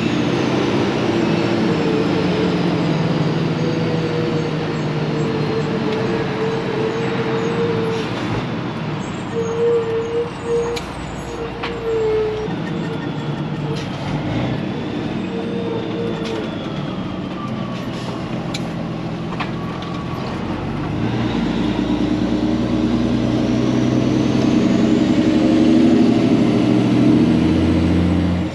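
Peterbilt 379 semi truck's diesel engine running under way, its high whine slowly falling as it eases off. Near the end the engine note swells louder with a rising whine as it pulls harder.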